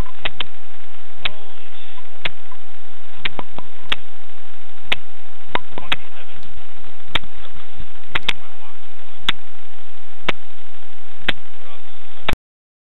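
Loud, even hiss from a camera watch's small microphone, with a faint steady whine and sharp ticks about once a second.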